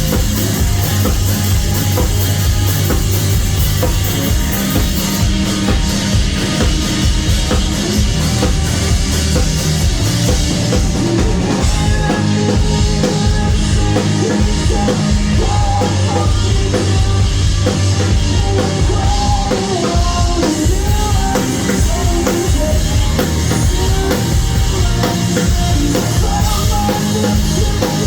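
Live rock band playing loudly: a driving drum kit beat under electric guitars, with pitched melodic lines in the middle of the song.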